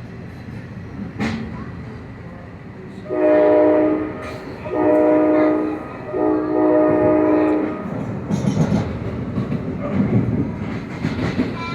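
Train horn sounding three blasts, each about a second long with the last one longer, over the rumble of a train. After the horn, the rumble grows louder with rattling clicks of wheels on the track.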